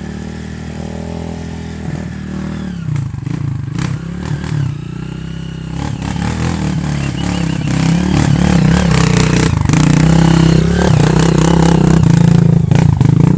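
Off-road trail motorcycle engine working hard under load on a rough stretch of trail, growing louder about halfway through and running at its loudest near the end.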